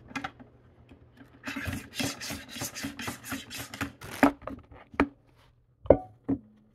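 Radishes being sliced on a plastic mandoline slicer with a hand guard: quick repeated rasping strokes across the blade, several a second. A few sharp knocks follow near the end.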